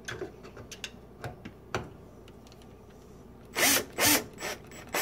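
Power screwdriver driving a screw in two short bursts a little past halfway, with a few lighter clicks and runs before and after.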